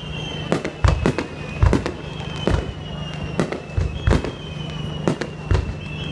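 Aerial fireworks shells bursting: about ten booms and sharp cracks at uneven intervals, with long high whistles that fall slowly in pitch every couple of seconds.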